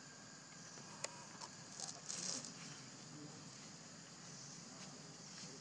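Faint, steady high drone of forest insects, with a single sharp click about a second in and a short scratchy noise around two seconds in.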